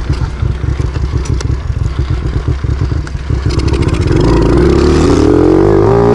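Motorbike engine running at low revs with a rapid low putter, then revving up, its pitch climbing steadily from about three and a half seconds in.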